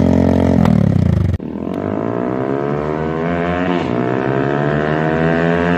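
TVS Apache RTR 180's single-cylinder engine through an aftermarket silencer, held at high revs and then cut off abruptly about a second and a half in. It is followed by the bike riding up under acceleration, its exhaust note climbing steadily in pitch with a brief dip about four seconds in.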